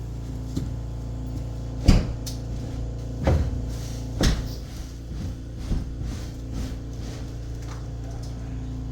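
A handful of knocks and bumps, about five spread over several seconds, as a heavy quartz countertop slab is shifted and worked into place on the base cabinets, over a steady low hum.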